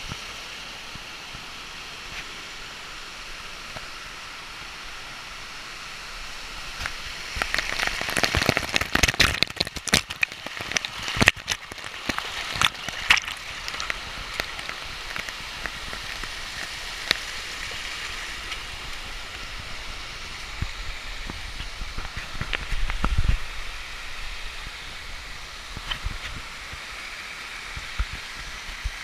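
Waterfall water rushing in a steady hiss. A spell of louder crackling with sharp clicks comes between about seven and fourteen seconds in, and a brief low rumble later.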